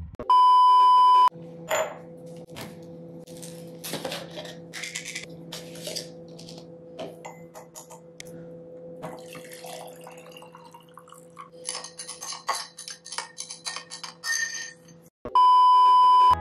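A steady high test-tone beep of about a second plays with a TV colour-bars card, once near the start and again near the end. Between the beeps come kitchen-counter sounds: a plastic scoop tapping and scraping in a tub of protein powder and clinking against a glass mason jar, over a steady low hum.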